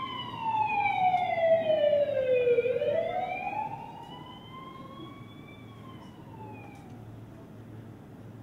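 Siren sound effect played over the hall's speakers: one slow wail that falls in pitch for about two and a half seconds, then rises again and fades out about seven seconds in.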